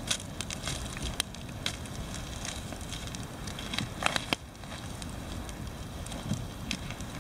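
Wood campfire burning, crackling and popping with scattered sharp snaps over a steady low rush. A few louder pops come close together about four seconds in.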